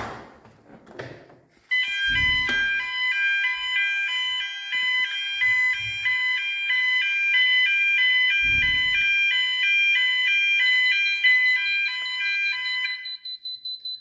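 Building fire alarm sounder going off, a loud electronic pattern of several tones stepping rapidly back and forth, which stops a second or so before the end. About ten seconds in, the Fireco Freedor door holder starts a fast, high-pitched beeping: it has heard the fire alarm and is signalling that it is about to release and close the door. Two short, dull low rumbles come near the start and about two-thirds of the way through.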